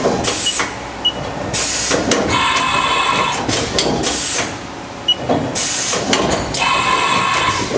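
Haas side-mount tool changer at work: two pulses of motor whine about four seconds apart, with several short, sharp bursts of air hiss between them, as a tool is swapped into the spindle.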